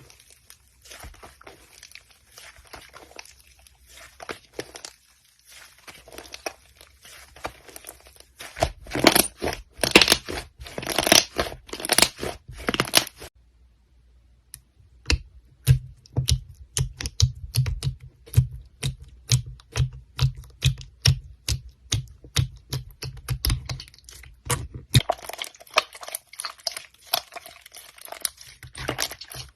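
Slime being squeezed and stretched by hand, giving sticky crackling and popping. Partway through comes a regular run of sharp pops with soft low thuds, about three or four a second, before the crackling returns.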